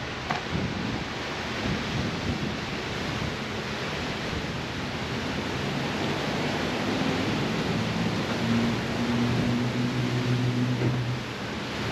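Steady outdoor background noise, an even hiss over a low rumble. From about halfway through, a faint low hum with a few steady pitches joins it and drops away just before the end.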